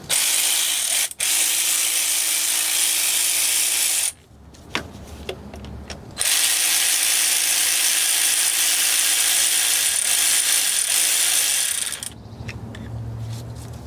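Power ratchet running in two long, steady bursts, about four and then six seconds, with a short pause and a few clicks between them: it is unscrewing the M10 bolts that hold the timing chain guides.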